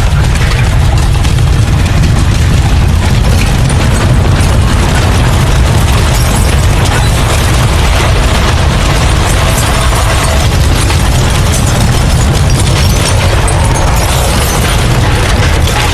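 Simulated earthquake: a loud, unbroken, deep rumble with crackling and clattering over it.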